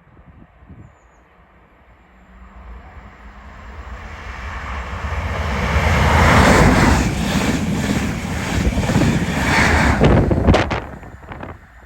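A train passing at speed, growing louder as it approaches and loudest for about four seconds with a run of sharp clicks from the wheels, then dropping away quickly near the end.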